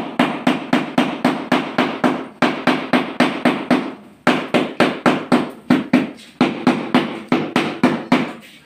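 A hammer tapping a polished tile slab about three times a second to bed it down level in its mortar, with two short pauses, about two and four seconds in.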